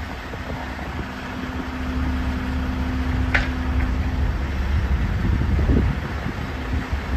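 Crawler excavator's diesel engine working under load, a steady low rumble with a droning tone for the first half, as the bucket dumps dirt into a dump trailer. One short clank about three and a half seconds in.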